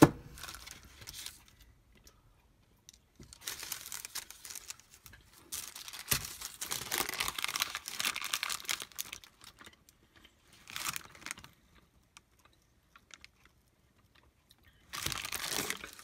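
Cheese wrapping paper crinkling and rustling as it is handled, in several separate bursts with quiet gaps between them, the longest a few seconds long near the middle. A single sharp tap sounds right at the start.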